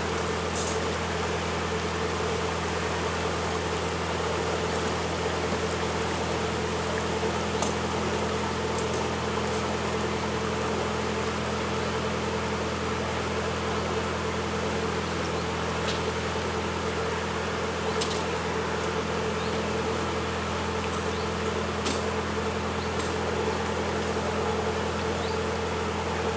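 Narrowboat engine running steadily at slow cruising speed, an even low drone that holds the same pitch throughout.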